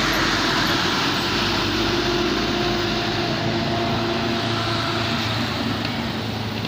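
Bus engine running with a steady low drone and road noise, slowly getting quieter.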